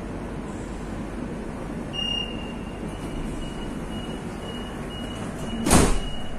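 Metro train door-closing warning: a high electronic beep that repeats about twice a second over the car's steady running hum, ending in the loud bang of the sliding doors shutting near the end.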